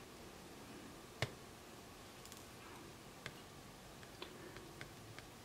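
Faint, sharp clicks of metal tweezers handling tiny surface-mount parts. One sharper click comes about a second in, then four lighter ones are spread over the rest.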